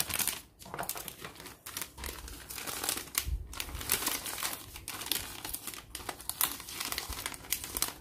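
Clear cellophane sleeve crinkling and rustling in irregular crackles as a large photo print is slid back inside it by hand.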